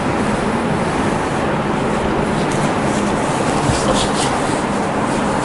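Steady loud hiss with soft rubbing strokes over it: a felt chalkboard eraser wiping the board, then hands rubbing a forearm.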